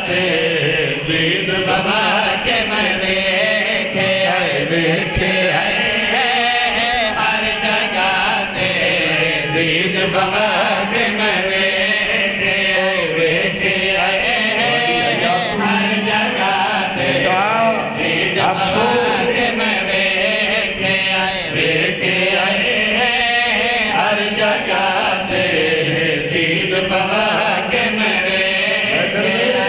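Several men chanting a devotional chorus together into microphones, amplified through a PA. The chant is continuous and steady in loudness.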